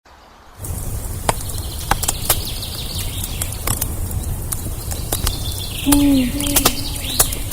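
Campfire crackling sound effect: irregular sharp pops and snaps over a steady hiss, starting about half a second in. Birds chirp over it from about five seconds in, and a short low falling call sounds near six seconds.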